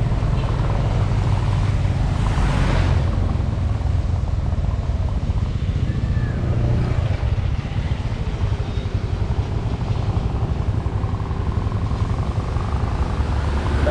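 Motorcycle engine running steadily on the move, with wind and road noise rushing over the microphone; a brief swell of noise comes about two to three seconds in.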